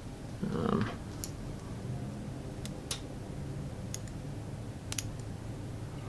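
A handful of sparse, sharp clicks and ticks from hands working rubber legs and thread on a fly-tying vise, with a brief low murmur under a second in.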